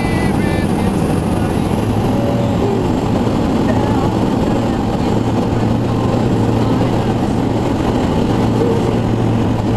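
FK 12 Comet biplane's engine and propeller running steadily at a constant pitch, with wind rushing over the open cockpit.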